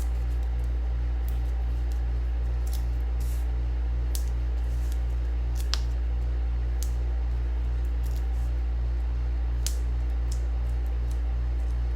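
A steady low electrical hum with a regular pulsing about twice a second runs throughout. Over it come scattered faint ticks and short rustles of small paper and adhesive pieces being handled.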